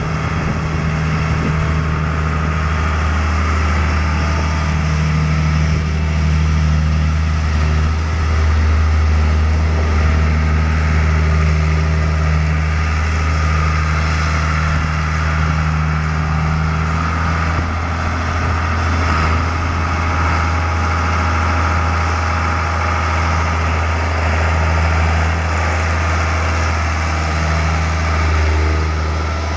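New Holland 8970 tractor's Ford 7.5-litre six-cylinder turbo diesel running at a steady, even speed while the tractor is driven slowly around. A deep engine note holds throughout, swelling only slightly as the tractor turns.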